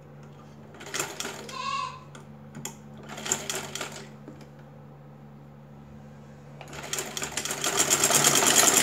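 Sewing machine stitching a seam, a fast even patter of needle strokes. It runs loudest and steadily from about seven seconds in, after a brief run a few seconds earlier.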